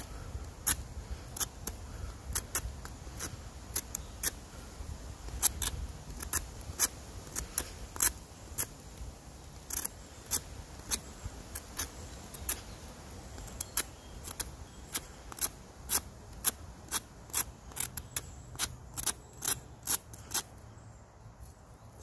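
Knife blade shaving the wet outer layer off a birch log, one short scraping stroke after another, about one to two a second and quicker in the second half. The bark is being stripped back to dry wood so the fire will smoke less.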